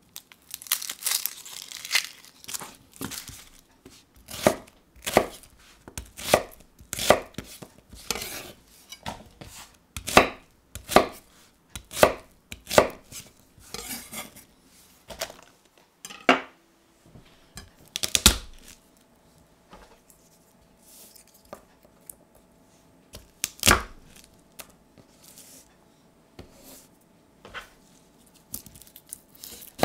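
Dry red onion skin crinkling as it is peeled, then a kitchen knife chopping on a wooden cutting board in sharp strokes about twice a second. The strokes thin out after the middle into a few heavier thuds.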